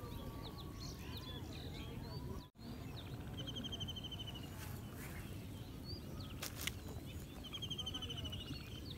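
Birds chirping, with a fast trilling call heard twice, about three and a half seconds in and again near the end, over a steady low rumble of outdoor noise. A sharp click comes about two-thirds of the way through.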